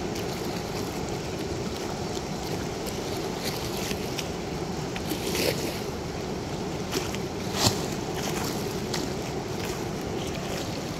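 Steady rush of water pouring through a weir's sluice gate, with a couple of short sharp knocks, the louder one about seven and a half seconds in.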